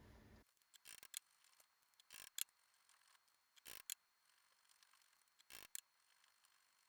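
Near silence broken by about four faint, short metallic clicks and taps, some in quick pairs, about a second and a half apart, from small adjustments to a mini lathe's compound slide while setting its taper angle.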